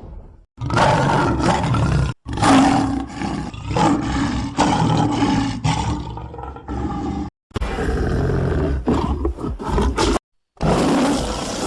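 Lion roar sound effect: about four loud, rough roars one after another, each cut off abruptly into silence.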